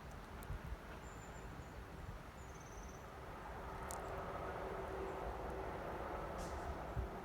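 Wood campfire burning, with a steady hiss and a few sharp pops and crackles. A few short high chirps sound between about one and three seconds in.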